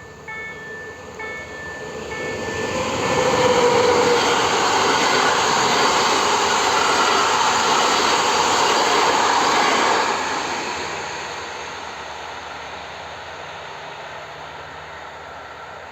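Train passing over a level crossing: a loud, even rushing noise swells about two seconds in, holds for about seven seconds, then slowly fades. The crossing's warning bell dings at the start and is drowned out as the train arrives.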